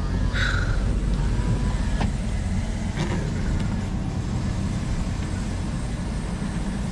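Car engine running at low speed, heard from inside the cabin as a steady low rumble, with a couple of faint clicks about two and three seconds in.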